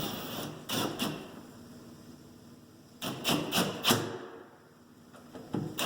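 Metal clicks and knocks from a Schlage Century handleset's front handle being fitted and lined up on a door: a pair of knocks just under a second in, a quick cluster of four or five around three to four seconds, and another near the end.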